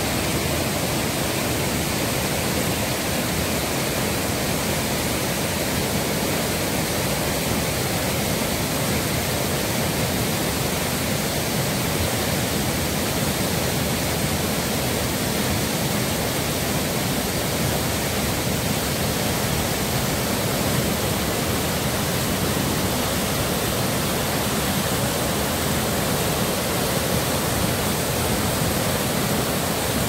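Whitewater of a river cascade rushing over rock ledges, a loud, steady rush of water with no breaks.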